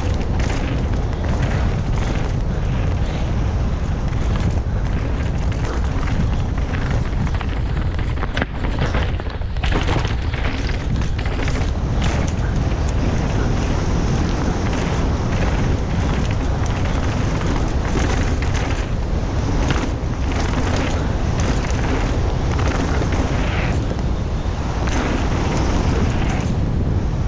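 Wind buffeting a helmet-mounted action camera's microphone, over the rumble, rattle and knocks of a downhill mountain bike rolling fast over a rough dirt and rock trail. It eases briefly about nine seconds in.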